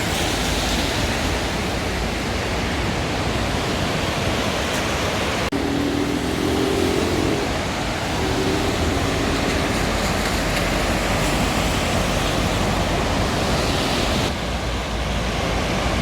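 Steady rushing outdoor noise with no distinct thunderclaps; a faint pitched sound comes and goes about six to eight seconds in.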